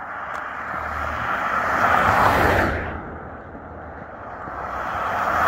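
Two pickup trucks driving past close by, one after the other: each is a swelling rush of tyre and engine noise. The first peaks and fades about two seconds in, and the second builds toward the end.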